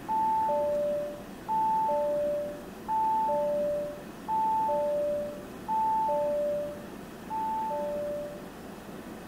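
2023 Audi A5 Sportback instrument-cluster warning chime: a two-tone ding-dong, high note then low, repeating about every second and a half, six times, then stopping. It is the alert that the drive system is still active and the ignition should be switched off.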